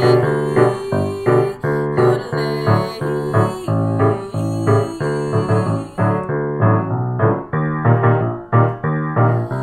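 Piano accompaniment for a vocal yodel warm-up exercise, playing a short repeated pattern of notes in a quick, steady rhythm.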